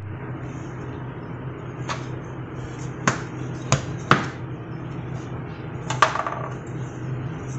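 Handling sounds as a DJI Osmo Pocket is pressed into the foam insert of a hard-shell carrying case: five sharp clicks and knocks, the last with a short ring. A steady low hum runs underneath.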